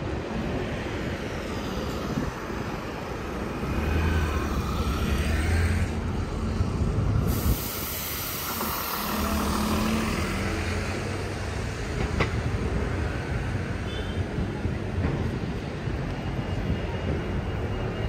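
A vehicle running by with a steady low hum that swells and fades, and a brief burst of hiss about seven seconds in.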